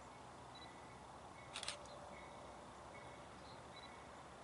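Near silence: faint outdoor background hiss, with one brief high chirp about one and a half seconds in.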